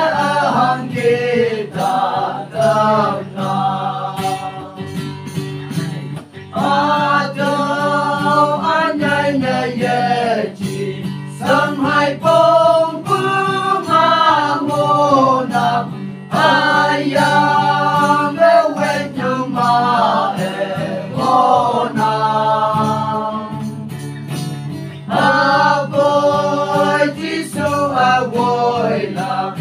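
A group of men singing a worship song together in phrases with short breaths between them, accompanied by two strummed acoustic guitars.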